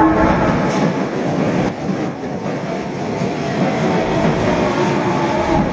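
Door chime of Osaka Metro Tanimachi Line car 22616, a chime that sounds abnormal. Its tones end just after the start and come back faintly near the end, over steady train and platform noise with a couple of short knocks in the first two seconds.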